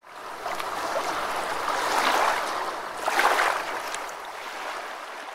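Rushing, splashing water, swelling about two and three seconds in.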